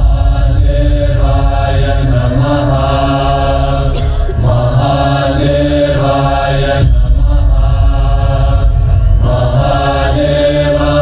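Chanting voices, like a choir, sung in repeated phrases about two seconds each over a heavy, steady bass layer.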